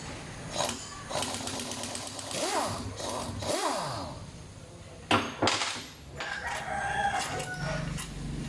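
A chicken calls twice in the background of a repair shop, each call gliding up and down in pitch, and two sharp knocks follow about five seconds in.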